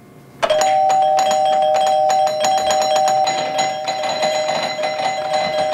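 Electronic doorbell chime sounding: two steady tones held together, starting about half a second in, with rapid clicking over them.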